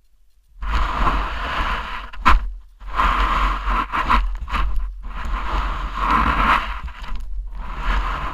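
Snow scraping and rustling close to the microphone, in uneven bursts of a second or two with short gaps, over a low rumble.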